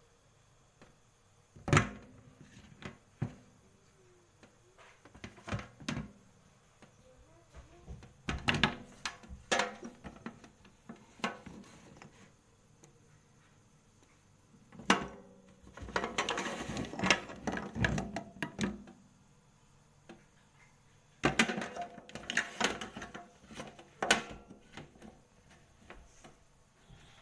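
Handling noises from a shower set being unpacked: scattered sharp clicks and knocks of hard plastic parts, and two longer bouts of rustling packaging in the second half.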